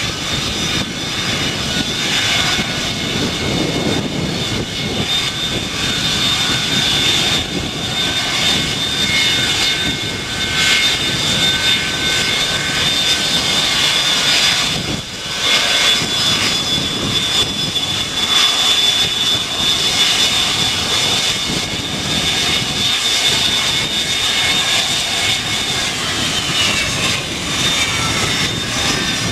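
Boeing 727's three rear-mounted Pratt & Whitney JT8D turbofans running at taxi power: a steady jet rush with a high whine. Near the end the whine falls in pitch.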